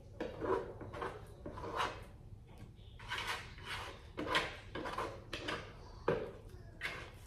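Fingers scraping and rubbing sticky bread dough off the inside of a plastic basin: a string of short, rough scraping strokes, with a sharper knock about six seconds in.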